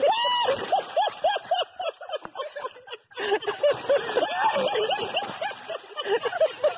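A person laughing hard and without let-up, a quick string of high "ha" sounds about four a second, breaking off briefly about three seconds in.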